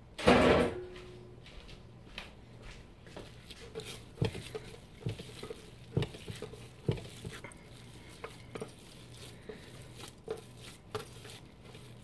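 Hands kneading a soft seitan dough on a wooden cutting board: dull knocks and soft squishes as the dough is pressed and folded, roughly one every second. A sharp knock on the board about a third of a second in is the loudest sound.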